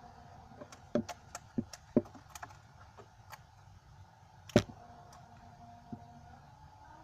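Homemade slime being squeezed and stretched by hand, giving irregular sharp clicks and pops, the loudest about four and a half seconds in.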